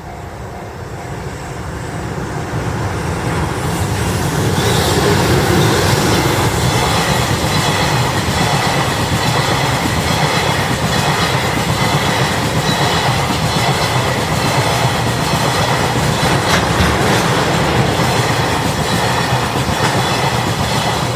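An oil freight train of tank wagons passing over a level crossing. It grows louder over the first four seconds or so, then runs loud and steady, with a rhythmic clatter of wheels over the rail joints.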